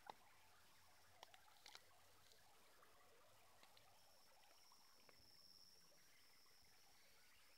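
Near silence: a faint, steady high-pitched insect drone over a low hiss, with a few faint clicks in the first two seconds.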